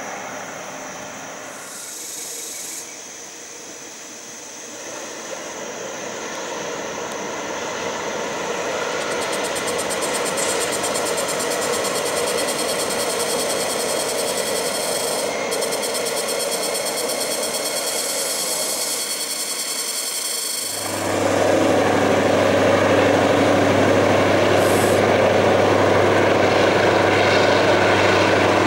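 Diesel-hauled passenger train crossing a viaduct: the rumble of the train grows gradually louder, with high steady tones over it. About two-thirds of the way in, the diesel locomotive's engine comes in loud, as a steady low hum.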